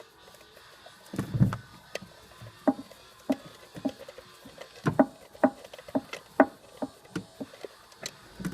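Light plastic and metal clicks and knocks while a distributor cap is seated and its hold-down screws are worked in by hand: a louder clatter about a second in, then fairly regular clicks about two a second.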